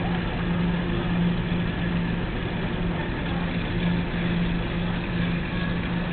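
Steady low machine hum and rumble of a bank of commercial tumble dryers running together in a laundromat.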